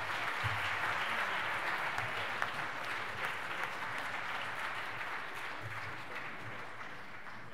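Audience of diners applauding, the clapping slowly dying away and stopping near the end.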